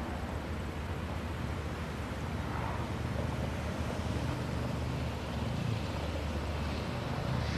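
Stock Jeep Liberty KK's 3.7-litre V6 running steadily as it drives slowly and turns on a dirt and gravel lot, with a low engine rumble under tyre noise.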